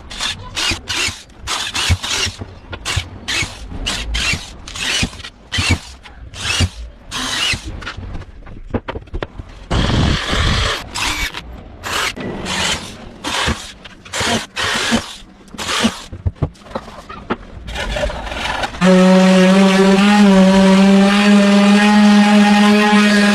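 Repeated rasping strokes of a hand tool working wood, roughly one or two a second, then about nineteen seconds in a power tool's motor starts abruptly and runs at a steady pitch.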